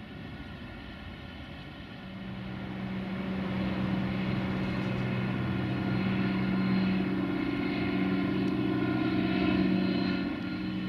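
Light propeller aircraft flying low overhead, its engine drone growing louder from about two seconds in, staying loud, then easing off near the end.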